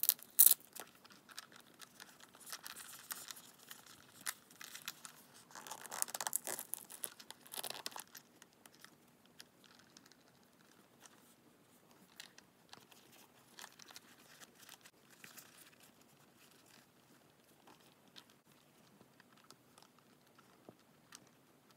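Faux-leather costume pieces for a coin pouch being handled. A sharp tearing sound comes right at the start as the belt's yellow fastener tab is pulled open, followed by rustling and crinkling a few seconds in, then only scattered faint handling clicks.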